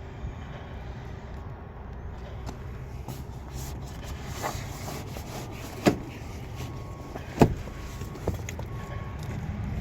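Four sharp clicks and knocks, spaced a second or two apart, over a low steady rumble.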